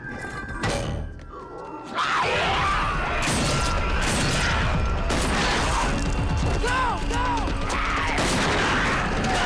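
Film soundtrack of a gunfight: a sharp thud about a second in, then from two seconds on loud score music with repeated shotgun and pistol shots.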